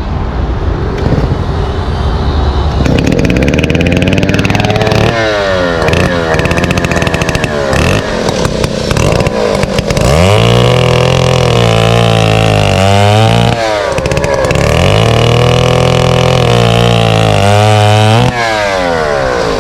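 Vintage Disston two-man chainsaw, powered by an air-cooled Mercury outboard-derived engine, cutting through a log with its 9-foot bar. The engine speed sags and recovers several times early in the cut, then settles in and pulls steadily as it finishes, before slowing near the end.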